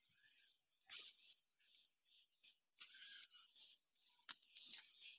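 Near silence with faint, scattered bird chirps and a few soft clicks.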